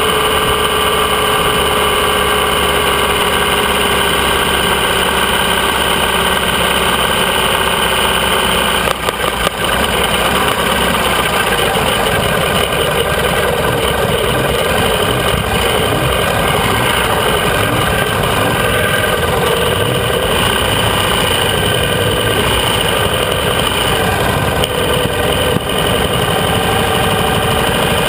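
AJS 650 CSR parallel-twin motorcycle engine running steadily while riding at low speed, heard close up from the tank, with a brief dip in the sound about nine seconds in.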